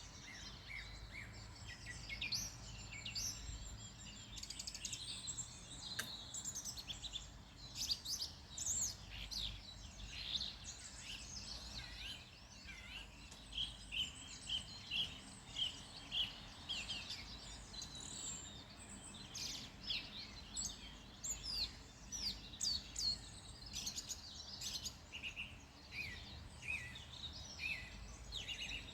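Several wild birds singing and calling together, a dense mix of short chirps and quick whistled notes, with one bird repeating a short note a few times a second for several seconds around the middle. A steady low rumble runs underneath.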